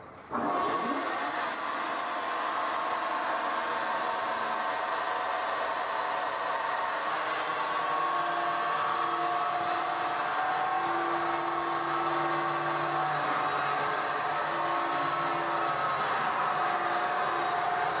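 Horizontal band sawmill running: a loud, steady hiss with faint humming tones underneath. It comes in abruptly right at the start.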